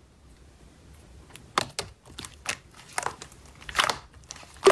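Glossy translucent slime squished and pressed by hands. It is quiet at first, then comes about five crackly, popping squelches roughly a second apart, the last one the loudest.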